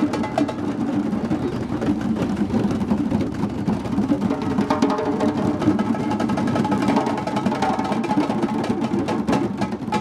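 A drum circle of djembes played by hand together in a dense, steady rhythm, many drums sounding at once.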